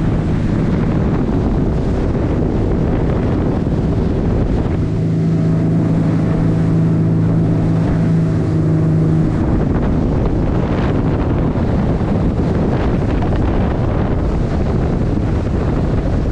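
Barcrusher 730HT hardtop boat under way at speed on open sea: a steady engine drone mixed with wind on the microphone and water rushing past the hull. The engine's hum stands out more clearly for a few seconds in the middle.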